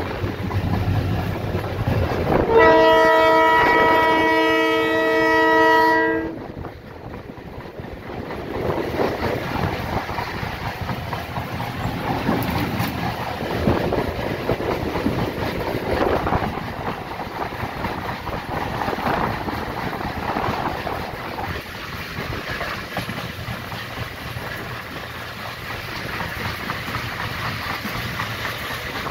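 Air horn of an EMD GT26CW diesel-electric locomotive sounding one long blast of about three and a half seconds, a couple of seconds in. Afterwards the train's running noise carries on steadily as it accelerates, with wheels on rails and a low engine drone.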